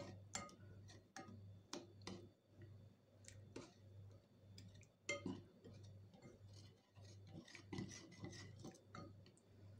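Wire whisk stirring warm cream to melt white chocolate pieces in a bowl: faint, irregular ticks of the wires against the bowl, a few a second.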